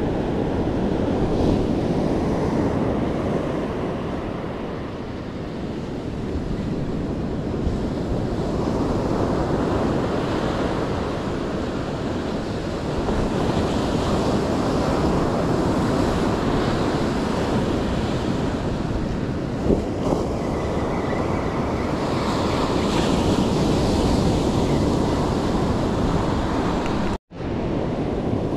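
Ocean surf breaking and washing up a sandy beach, swelling and easing with each wave, with wind on the microphone. The sound cuts out for a moment near the end.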